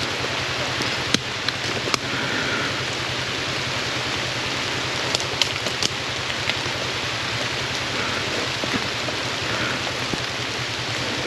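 Steady rain falling, with a few sharp clicks.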